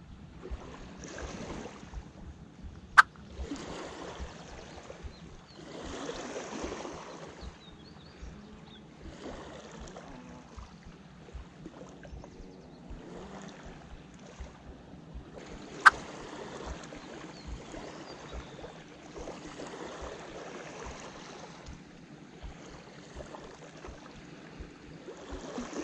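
Wind gusting over the microphone and small waves lapping at the shore, swelling and fading every second or two. A sharp click sounds twice, about three seconds in and again about sixteen seconds in.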